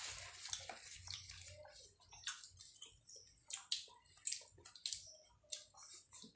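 Eating sounds: luchi being torn by hand and chewed, heard as scattered short soft clicks at irregular intervals.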